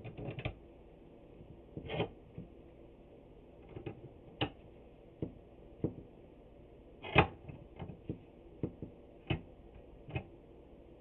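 Irregular knocks and clicks of clamps being handled and tightened on a glued-up board, about ten in all, the loudest about seven seconds in.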